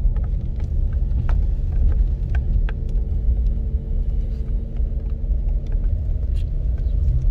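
A car running, giving a loud, steady low rumble with a faint engine hum and a few scattered light clicks. It starts abruptly.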